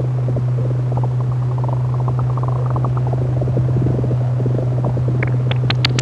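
Eurorack modular synthesiser sound design: a steady low drone under a dense run of short, rapid clicks and blips, with sharper, higher clicks coming in near the end.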